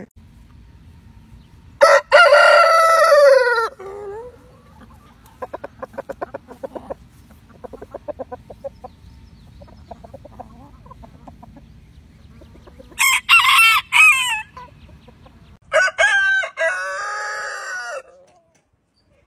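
Roosters crowing: one long crow about two seconds in, soft rapid clucking in the middle, then two more crows near the end, the first of them higher-pitched and broken up.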